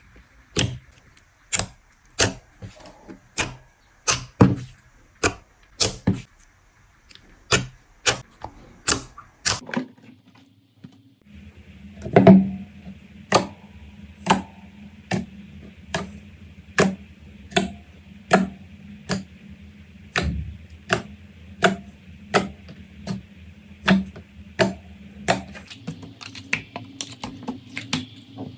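Slime being worked by hand, giving a steady run of sharp clicks and pops, about two a second. A faint steady hum joins in about a third of the way through.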